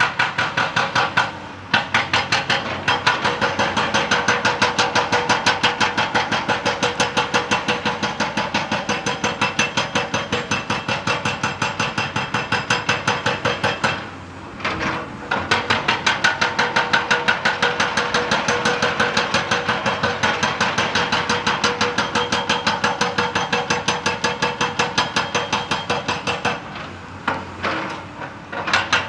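Excavator-mounted hydraulic rock breaker hammering rock in rapid, even blows. It stops briefly a few times, the longest stops about halfway through and near the end.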